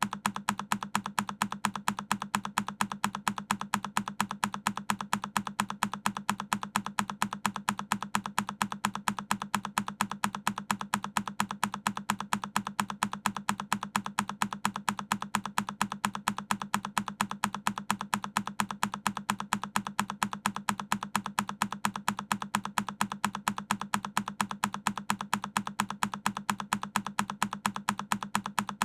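A single key on a Keychron K10 mechanical keyboard pressed over and over, an even, machine-regular run of sharp clicks, several a second, as a looped key-press sound effect.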